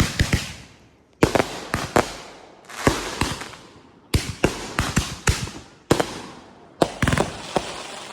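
Consumer fireworks going off in quick volleys: groups of sharp bangs about every second, each followed by a fading crackle.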